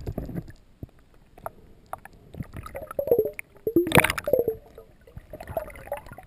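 Underwater sound picked up by a submerged camera: irregular clicks, squishy gurgles and short squeaks, with a louder rushing burst about four seconds in.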